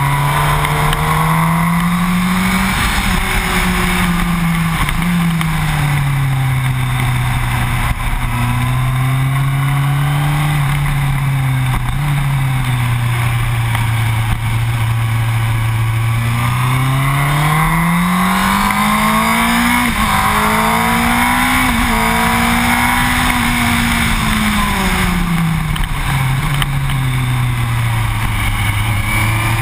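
Yamaha R1 motorcycle's inline-four engine running at speed on track, its note climbing and falling as the bike accelerates and slows, over steady wind rush.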